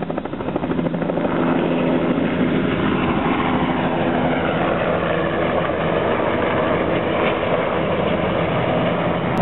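Helicopter lifting off and climbing away: rotor and engine noise that swells about a second in, then runs steadily.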